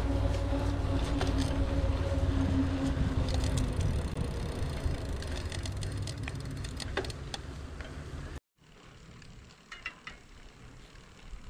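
Hardtail mountain bike being ridden along a dirt trail: heavy tyre and wind noise on the microphone, with rattles and clicks, and a steady hum that fades out about four seconds in. Just after eight seconds the sound cuts off abruptly and returns much quieter, with a few scattered clicks.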